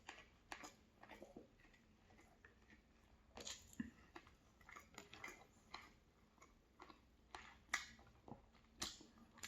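Faint chewing: a person eating, with soft irregular mouth clicks and smacks.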